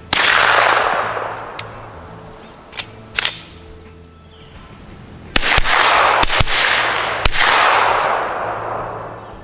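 A suppressed 9mm pistol fires one shot, and its echo rolls off over about two seconds. About five seconds in, several quick shots follow, and their echoes fade out toward the end.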